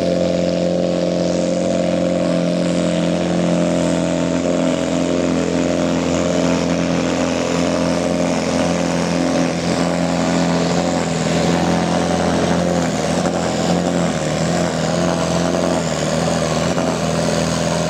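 New Holland pulling tractor's diesel engine running flat out under full load as it drags the weight-transfer sled, holding a steady high pitch.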